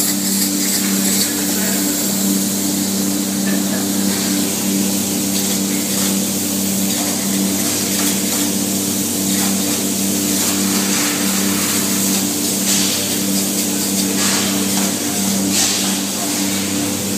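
Spray foam gun hissing steadily as two-part polyurethane foam insulation is sprayed, with a few brighter spurts later on, over a constant low machine hum.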